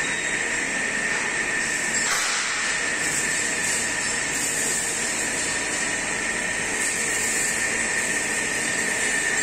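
Steady machine noise from a CNC angle-steel punching line running in its workshop: a constant hiss with a steady high whine, and a brief louder rush about two seconds in.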